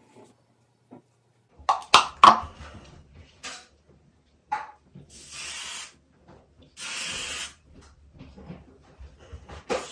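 Pantene aerosol hairspray can spraying onto hair: a couple of short puffs, then two steady hisses of under a second each, about five and seven seconds in. Shortly before the spraying, a quick cluster of loud knocks and handling clatter.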